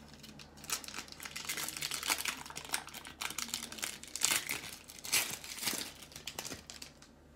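Wrapper of a pack of baseball cards being torn open and crinkled by hand, a dense crackling that starts about a second in and stops shortly before the end.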